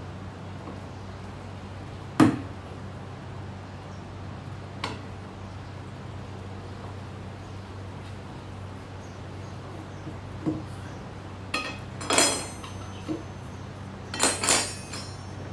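Metal tools knocking and clanking against a motorcycle wheel rim as the tire is worked off, scattered single hits with a sharp loud knock about two seconds in and a burst of ringing metallic clanks near the end. A steady low hum runs underneath.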